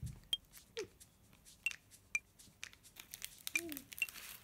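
Plastic snack wrapper crinkling in irregular crackles as the inner pouch of a biscuit-stick packet is opened and a stick is pulled out.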